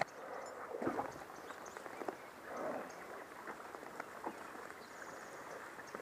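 Horses wading through a creek, hooves splashing and sloshing in the water in irregular splashes, with a couple of louder splashes about a second in and midway.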